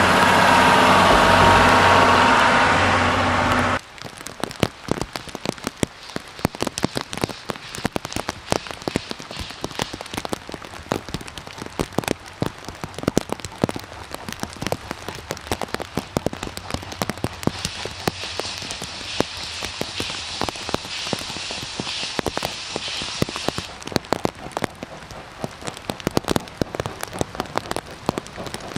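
Passenger coaches rolling over a steel girder bridge, loud at first and cutting off abruptly about four seconds in. Then heavy rain with many close, sharp drop hits, and a higher hiss joining for about five seconds past the middle.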